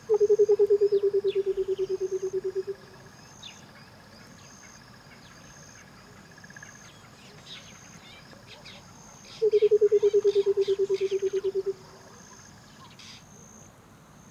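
Nature ambience: two loud, low, rapid trills from an animal, each two to three seconds long and dropping slightly in pitch, over a steady high insect chirring and scattered short bird chirps.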